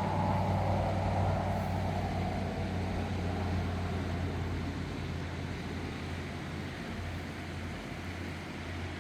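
Motor vehicle noise: a steady low engine hum, with a higher rushing sound that fades away over the first few seconds.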